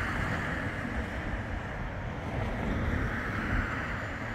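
Wind buffeting the microphone with a steady rushing hiss, over the quiet running of a Bombardier Flexity 2 tram at the platform.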